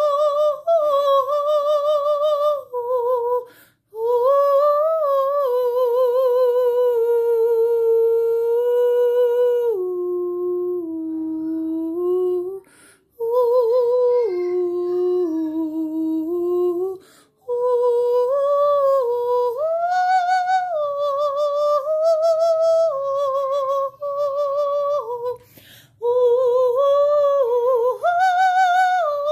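A single high voice humming and toning wordlessly, in long held notes with a wavering vibrato that glide from one pitch to the next and sink lower in the middle. It breaks off briefly for breath about four times.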